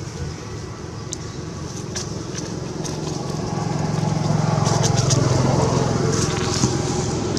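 A motor vehicle's engine running nearby, growing louder to a peak about five seconds in and then easing a little, as if driving past. Scattered short high clicks or chirps sound over it.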